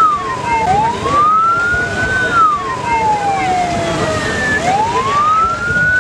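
A siren wailing, its pitch sliding up quickly and then falling slowly, about one rise and fall every four seconds.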